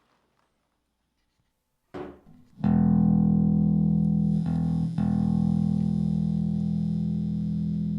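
Bass guitar picked through a small EROK mini bass amp. After about two seconds of near silence a note is struck and rings out long, with two short breaks around the middle. The tone grows brighter as the amp's tone knob is turned.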